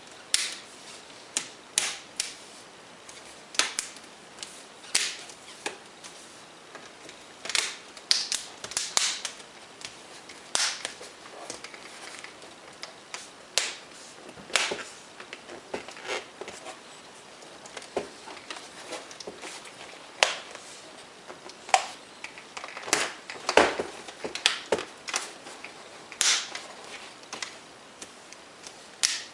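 Plastic screen bezel of an HP Envy M6 laptop being pressed down around its edge, its clips snapping into place with many sharp, irregular clicks.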